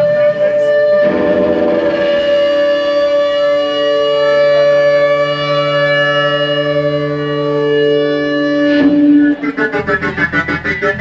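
Live band music with no singing: a long held chord rings steadily for about eight seconds, then a quick, rhythmic guitar part starts up near the end.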